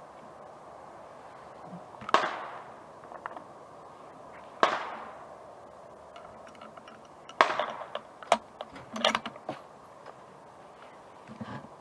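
Rifle shots at a shooting range: three sharp reports roughly two and a half seconds apart, each with a short echoing tail, followed by a quick run of smaller clicks and knocks.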